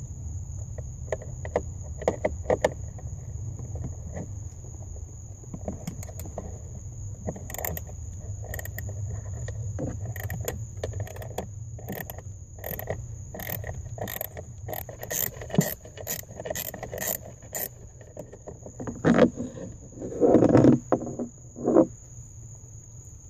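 Screwdriver backing out the top mounting bolt of a heat door actuator: a run of sharp, evenly spaced clicks, about two a second through the middle, then a few louder rubbing and handling noises near the end.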